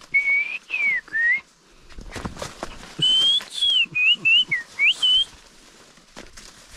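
A person whistling clear, sliding notes: a short phrase of three notes, then, after a pause of about a second and a half, a longer run of quick rising and falling notes. Footsteps and rustling underneath.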